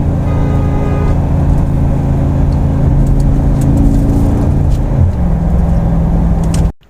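Mercedes-AMG G63's V8 engine running with a steady low drone, its pitch dropping a little about five seconds in; the sound cuts off abruptly near the end.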